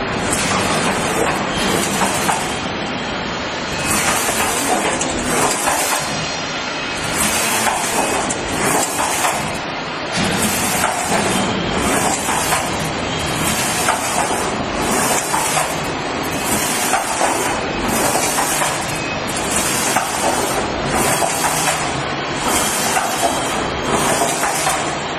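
Cold saw machine running, a loud, steady mechanical noise with hiss as its saw carriage travels along the machine bed.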